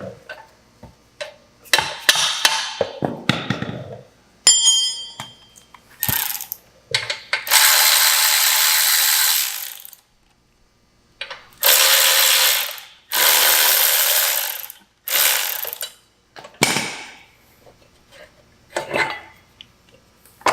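A ratchet wrench running in several spells of one to two seconds, undoing fasteners on a car's rear suspension, with scattered metal clanks between them.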